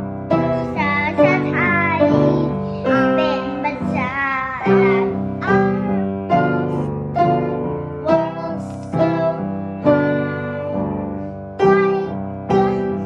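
Piano playing a slow tune, each note struck and dying away, about one and a half notes a second. In the first few seconds a wavering higher melody runs over the piano notes.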